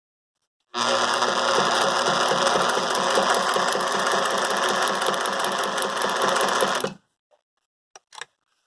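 Singer 99K electric sewing machine running at speed for about six seconds, starting and stopping abruptly, with a fast even stitching rhythm over the motor's hum, stitching through about four layers of denim. A couple of faint clicks near the end.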